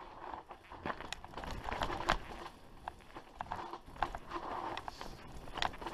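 Mountain bike rolling down a dry, stony dirt trail: tyres crunching over dirt and loose stones, with irregular sharp clicks and rattles from the bike over bumps.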